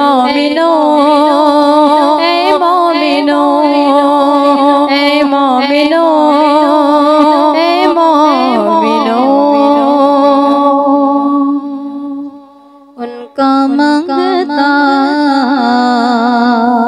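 Women's voices singing a naat: a drawn-out wordless melody wavering over a steady low held note, with a downward glide about eight seconds in and a brief break around twelve seconds.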